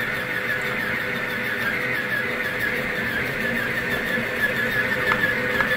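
Starcrest stand mixer running steadily as it kneads dough, a constant motor whine whose pitch wavers slightly.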